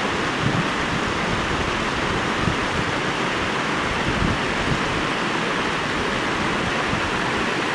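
Waterfall pouring down a bare rock slab: a steady, unbroken rush of water.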